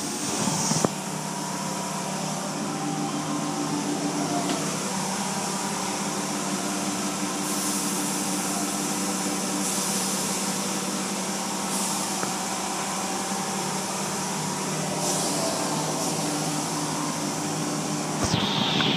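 Automatic tunnel car wash heard from inside the car: a steady machinery hum with water spray hissing against the body and windows, the spray swelling and fading several times. A knock about a second in and a louder knock at the end.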